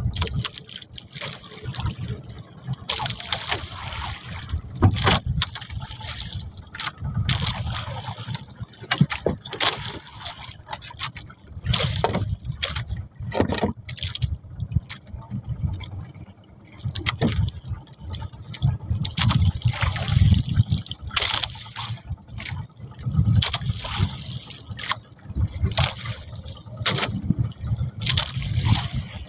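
Water sloshing and splashing around a small boat, with irregular knocks and bumps throughout.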